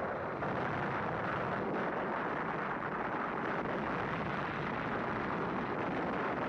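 Battle sound effects: a steady, dense rumbling roar with no separate shots standing out.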